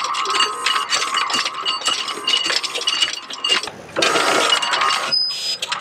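Rebuilt forty-year-old Ideal electric anchor windlass hauling in anchor chain: the motor runs with a steady whine while the chain clinks and rattles over the gypsy, pausing briefly about four seconds in and again near the end. The chain, the wrong size for the gypsy, is slipping and skipping on it.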